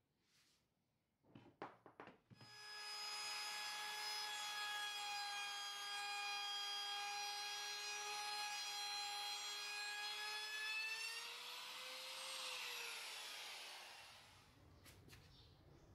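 Handheld trim router running and cutting plywood, a steady high motor whine. Near the end the pitch rises briefly, then the motor winds down. A few knocks just before it starts.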